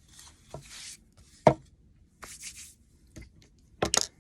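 Wooden pieces being handled on a work surface: a few sharp knocks, the loudest about one and a half seconds in, with short stretches of rubbing or sliding between them.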